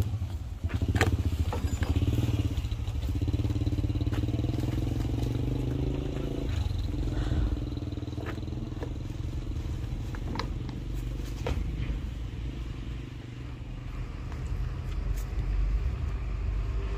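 An engine running steadily, with a few sharp clicks over it.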